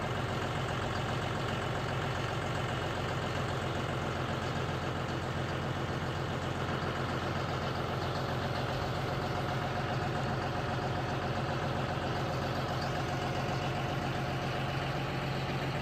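Compact tractor engine idling steadily.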